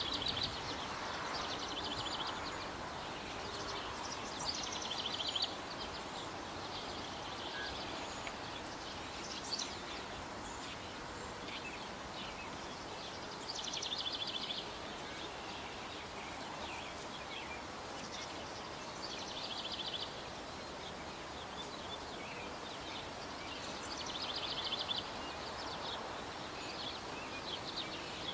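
A small songbird repeating a short, rapid, high trill several times, a few seconds apart, over a steady background rush.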